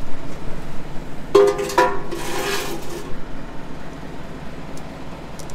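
Tractor engine running low and steady, with two short high-pitched squeals about a second and a half in, followed by about a second of hiss.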